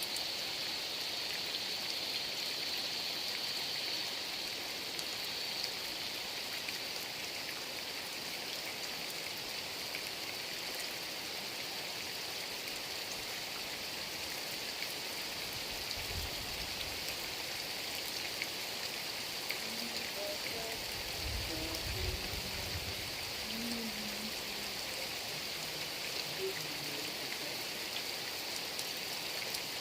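Heavy rain falling steadily, an even hiss of downpour. A low rumble comes about sixteen seconds in and again around twenty-one seconds.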